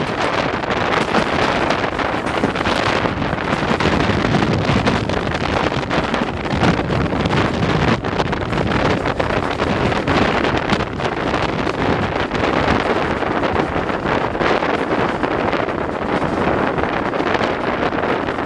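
Wind buffeting the microphone held out of the window of a moving railway coach. The running noise of the train is mostly buried under it.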